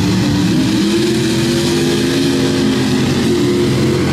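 Race truck's engine accelerating hard. Its pitch climbs over the first second or so, then it runs at high revs and eases slightly near the end as the truck passes down the dirt track.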